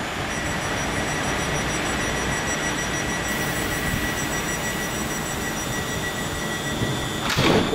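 London Midland electric multiple unit standing at the platform with its doors open, its onboard equipment giving a steady hum and rush with several thin high whines. A short loud rush of noise comes near the end.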